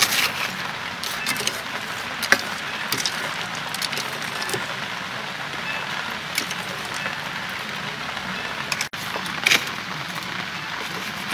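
Metal spoon stirring crushed ice and star apple pieces in a metal bowl, giving a few sharp clinks over a steady background noise.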